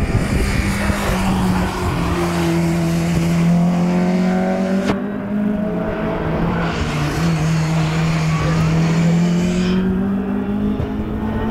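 Classic racing car's engine accelerating along the circuit, its pitch climbing steadily and dropping twice at upshifts, about two seconds in and again past the middle. A single sharp click about five seconds in.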